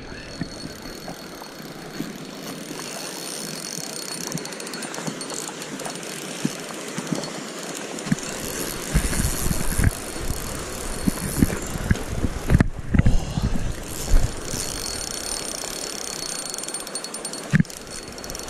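Rushing water of a shallow, riffled trout stream, with the spinning reel being cranked in fine ticks while a trout is played. From about halfway through, a run of low bumps on the body-worn microphone.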